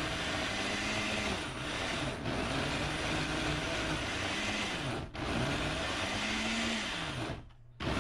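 Countertop blender motor running hard, grinding raw shad fillets and shrimp into a thick paste; its pitch repeatedly rises and sags as the heavy mix loads it. It stops briefly near the end and starts again.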